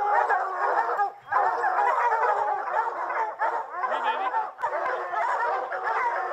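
A pack of hunting hounds baying together at a treed black bear, many voices overlapping in a continuous chorus with short breaks about a second in and again near the middle.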